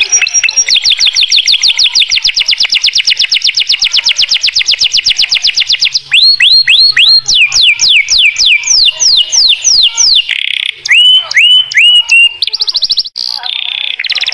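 Canary singing loudly: a fast trill of about eight repeated notes a second, then from about six seconds in slower falling notes, then a few rising-hooked notes and a rolling trill near the end.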